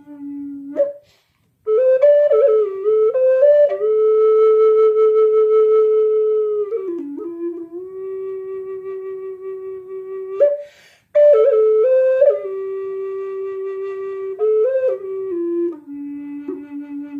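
Solo flute playing a slow melody of long held notes linked by short ornamented runs, with a short pause about a second in and an audible breath about two-thirds of the way through.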